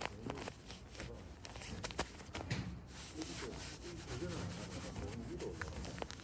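Golf-gloved hand rubbing a disposable hand-warmer pouch back and forth against a trouser leg: a continuous scratchy rubbing of fabric, with a few sharp clicks.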